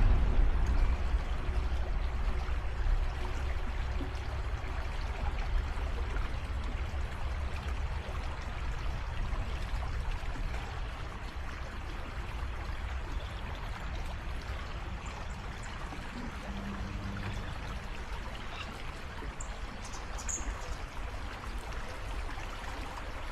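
Creek water flowing steadily over rocks and dividing around a small island, a constant rushing and trickling. A deeper rumble is strongest at the start and eases over the first few seconds, and a short high chirp comes in near the end.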